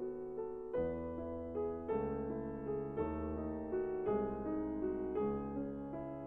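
Soft, slow piano music, with a sustained bass note under gentle melodic notes and a new chord struck about once a second.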